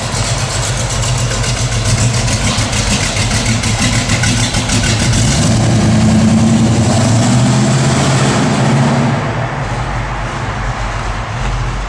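Year One crate 350 V8 with a Holley carburetor, in a 1966 Chevy II Nova, running as the car pulls away at low speed. It grows louder for a few seconds past the middle, then eases off near the end as the car moves off.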